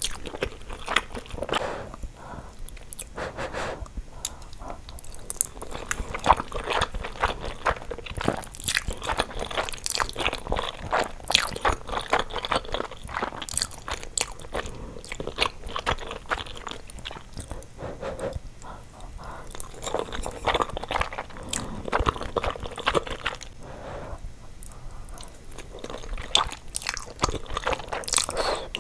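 Close-miked eating: repeated bites, crisp crunches and chewing in an irregular, continuous stream, as in a mukbang ASMR recording.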